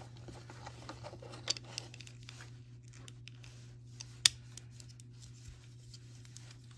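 LEGO plastic bricks clicking and rattling as they are pressed together and handled, with one sharp click a little over four seconds in.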